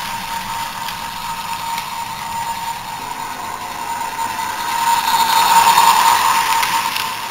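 Toy train's small electric motor whining steadily as it runs round a plastic track, with a few faint clicks. The whine grows louder as the train passes close by about five to six seconds in, then fades.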